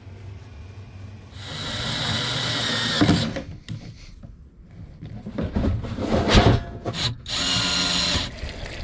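Cordless drill running in two bursts, driving into a wooden floor: the first lasts nearly two seconds, the second about a second near the end. Knocks and handling noises fall in between.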